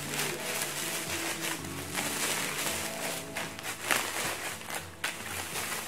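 Plastic bags crinkling and rustling in short irregular crackles as plastic-wrapped T-shirts are pushed into a plastic postal mailer bag, with background music underneath.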